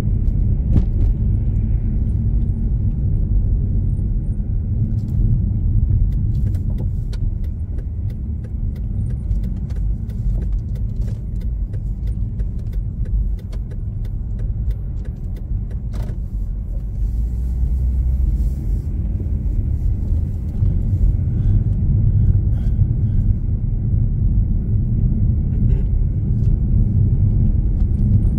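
A car driving along a road, giving a steady low rumble of engine and road noise, with scattered light clicks through the middle.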